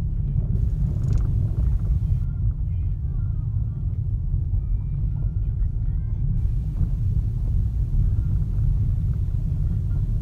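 Car cabin road noise while driving on a gravel road: a steady low rumble of tyres and engine heard from inside the car.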